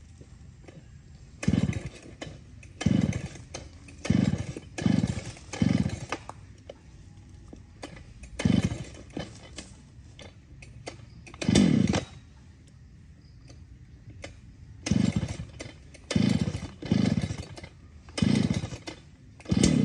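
Husqvarna 395XP two-stroke chainsaw being revved in short throttle blips, about a dozen over the stretch. Each rev falls back to a low idle, and there is a longer idle pause in the middle.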